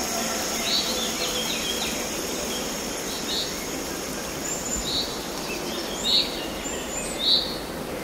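Steady rush of falling water, with a small bird giving about six short chirps spread through it.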